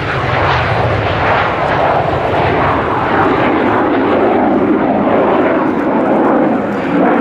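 Kawasaki T-4 jet trainer's twin turbofan engines: loud, steady jet noise as the aircraft pulls up and climbs vertically, the sound deepening as it climbs away.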